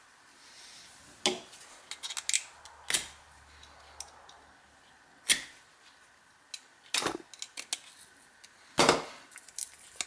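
Irregular sharp clicks and taps of a small metal key being handled and unwrapped from tape in the fingers. About half a dozen louder clacks are spread through, among fainter ticks.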